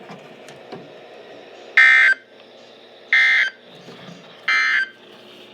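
Three short bursts of EAS SAME digital data tones on NOAA Weather Radio, each about half a second long and a little over a second apart: the end-of-message code that closes a severe thunderstorm warning. A steady radio hiss lies underneath.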